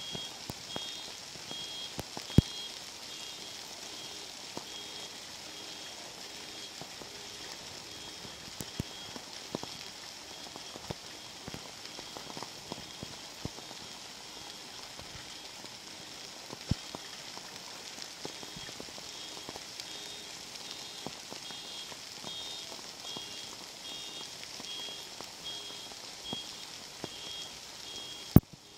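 Hailstorm: a steady hiss of rain and hail with scattered sharp cracks of hailstones striking, a few of them much louder. A repeating pattern of short high electronic beeps sounds through the first third and again through the second half.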